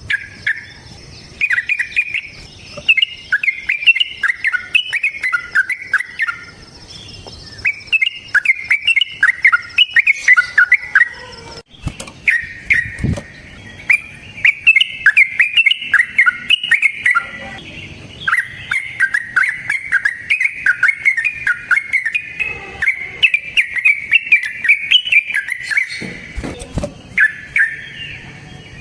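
Yellow-vented bulbul (trucukan) singing long runs of quick, bubbly warbled notes, in phrases of several seconds with short pauses between them.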